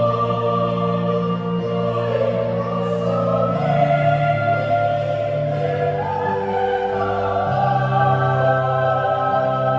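Mixed choir singing in harmony, with long held chords changing every second or two over a steady low bass line.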